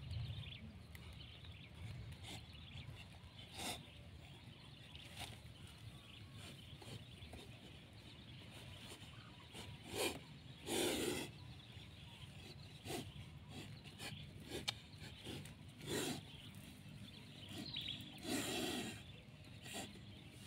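A stick prodding inside a wire-mesh snake trap: soft scattered clicks and scrapes, with a few louder rustling bursts, one about halfway through and one near the end.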